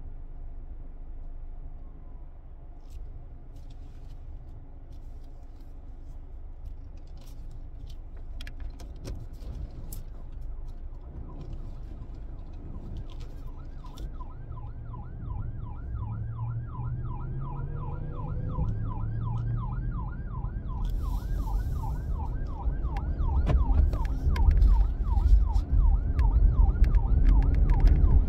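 Emergency vehicle siren in a fast yelp, several rise-and-fall cycles a second, coming in about halfway through and growing louder as it closes in behind the car. It is heard from inside the car over a steady road rumble.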